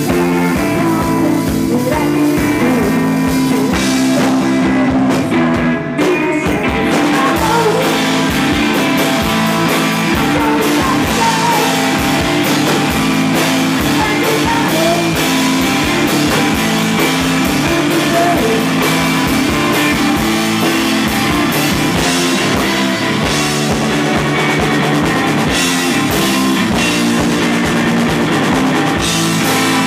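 Live rock band playing loud: electric guitar and a drum kit, with a brief drop in the cymbals about six seconds in, heard from the audience.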